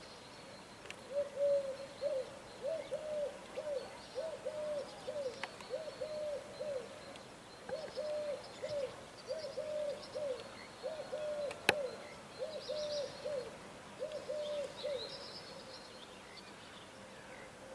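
A dove cooing a long run of short, low coos in repeated phrases, stopping near the end. Faint chirps of small birds sound above it, and there is a single sharp click about two-thirds of the way through.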